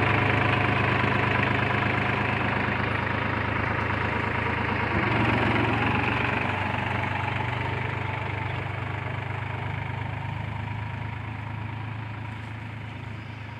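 New Holland tractor's diesel engine running steadily as it pulls a spring-tine cultivator through the field, growing fainter as the tractor moves away.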